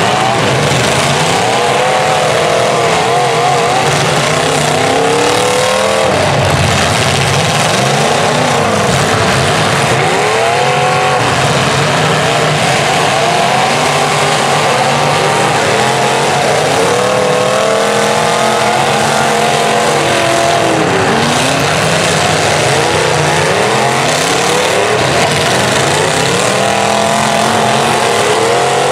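Several demolition derby cars' engines running and revving together, their pitch rising and falling over and over.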